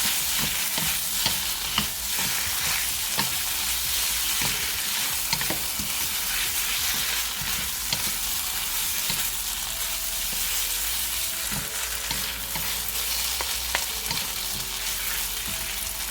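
Pad thai noodles with shrimp, tofu and bean sprouts sizzling in a hot pan as they are stirred. A steady frying hiss runs throughout, with frequent short clicks and scrapes from the stirring.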